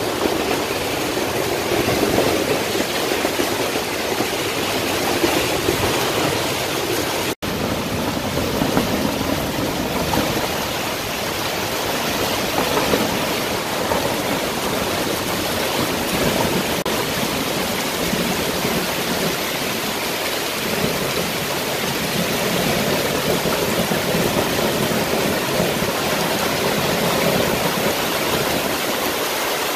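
Steady rushing noise of a tropical storm's heavy rain and wind, heard from under the fabric roof of a retractable-roof greenhouse. The sound cuts out for an instant about seven seconds in.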